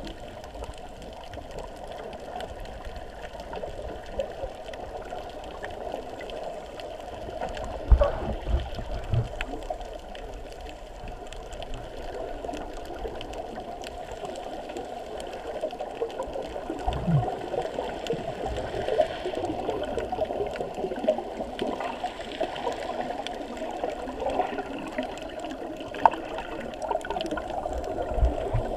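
Muffled underwater water noise picked up through a GoPro's waterproof housing: a steady crackling hiss that grows busier in the second half, with a few low thumps.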